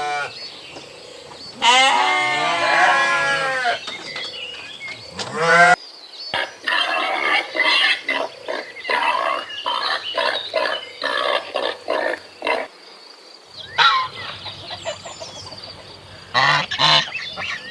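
A sequence of farm animal calls. There is a wavering, bleat-like call about two seconds in, then a long run of rapid, short calls, and a few more calls near the end.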